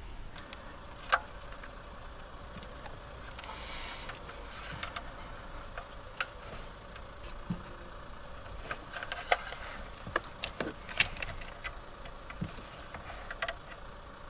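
Car wiring being handled behind the dashboard: scattered clicks, taps and rattles of plastic LVDS cable plugs and harness, with a cluster of clicks as plugs are fitted to the head unit's connectors. A steady low hum lies beneath.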